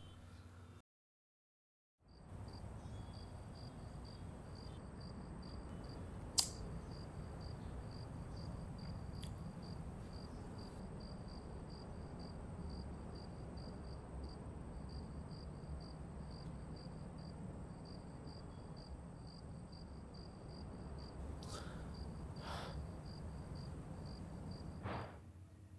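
Night ambience of crickets: a faint high chirp repeating evenly two or three times a second, with a steady thin insect whine above it and a low hiss underneath. The sound drops out completely for about a second near the start. A single sharp click comes about six seconds in, and a few soft knocks near the end.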